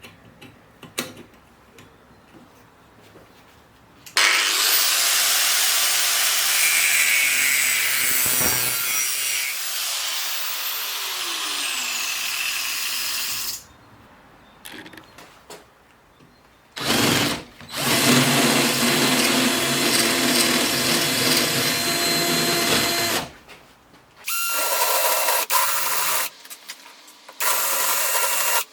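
Handheld power tool running in bursts: a long run of about nine seconds, another of about six seconds, then several short runs near the end, with quiet gaps and small clicks between.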